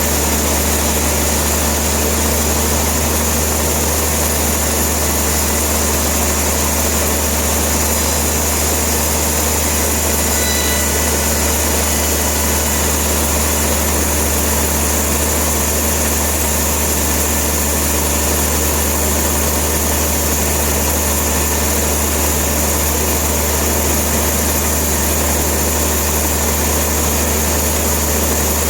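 Steady, unchanging drone of running machinery: a loud low hum under an even noisy hiss, with no cuts or knocks standing out.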